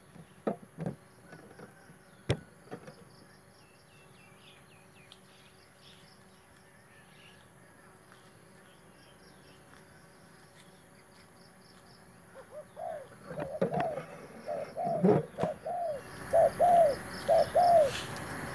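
Spotted dove cooing: a run of short, arched low notes that begins about two-thirds of the way in and grows louder near the end. Before that there is only faint high chirping.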